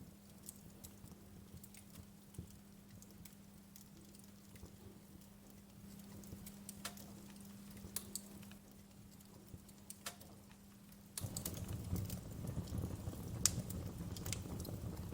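Wood fire in a fireplace crackling, with sharp pops scattered through it over a faint steady hum. About eleven seconds in the sound abruptly gets louder, with a low rumble under denser crackling.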